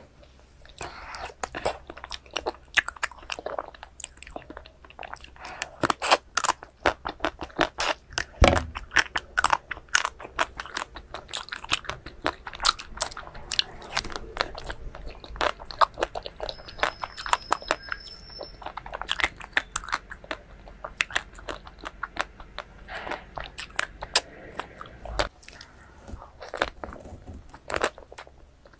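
Close-miked eating of ice cream: crunchy bites and chewing, a dense, irregular crackle of sharp crunches.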